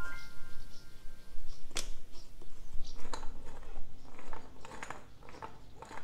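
A wooden board on a string being worked back and forth in wet concrete under a stone step, to push the concrete into the gaps beneath it. There is a sharp knock about two seconds in, then a run of short, irregular scraping strokes.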